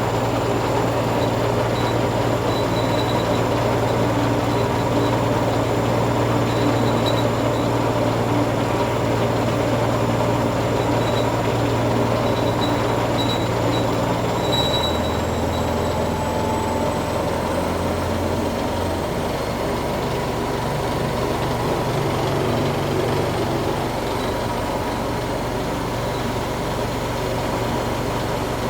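Zanussi ZE 16 washing machine spinning with a badly unbalanced load, a loud steady mechanical running whose low hum drops in pitch about halfway through and again a few seconds later as the drum speed changes.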